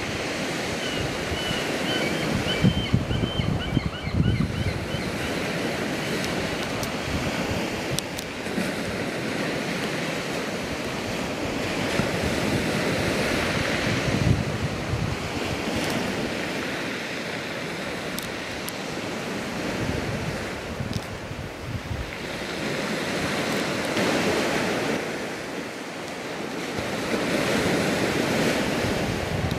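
Sea surf washing in and out with wind buffeting the microphone; the wash swells and eases every few seconds.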